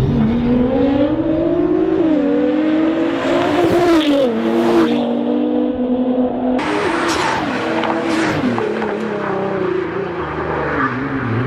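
Nissan GT-R engine under hard acceleration, its pitch climbing and then dropping at each of several upshifts, with bursts of rushing noise as it pulls.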